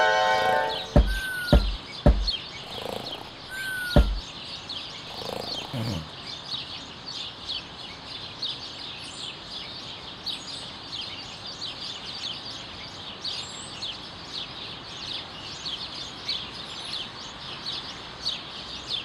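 Small birds chirping steadily, short high chirps repeating several times a second. In the first few seconds there are four sharp knocks, and short falling whistles come with some of them.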